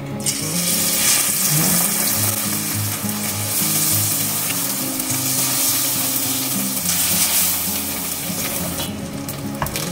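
Vietnamese spring rolls (nem rán) sizzling in hot oil in a frying pan. The sizzle starts suddenly just after the start as the first roll goes in, stays loud, and eases off near the end.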